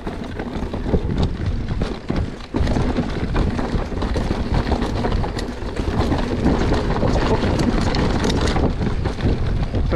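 Wind noise on an action camera's microphone during a fast mountain bike descent over rough dirt singletrack, with a dense run of small rattles and knocks from the bike over roots and rocks.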